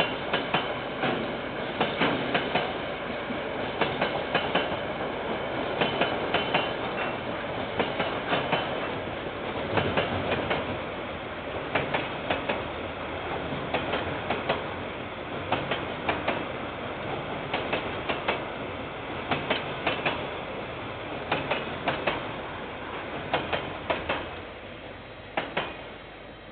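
KiwiRail freight wagons rolling past over a steady rumble, their wheels clacking over rail joints in clusters about every two seconds. The sound drops away as the last wagons pass near the end.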